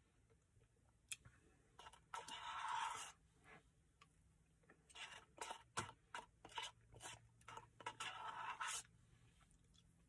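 Red plastic spoon scraping and clicking against the inside of a paper Dairy Queen Blizzard cup, mixed with close chewing and mouth sounds. There are two longer scrapes, about two seconds in and again near the end, with a run of short clicks between them.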